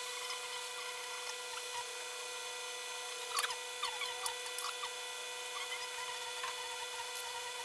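A steady electrical hum, with a few faint rustles and ticks about three to five seconds in.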